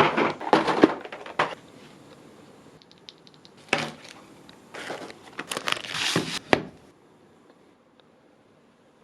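Handling noise from unpacking a keyboard kit: crinkling packaging and hard plastic parts clicking, in irregular bursts that stop about seven seconds in.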